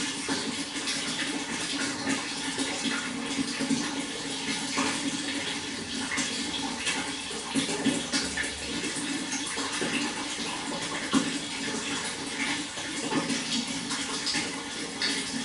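Water flowing steadily, a continuous rush dotted with many small splashes and drips.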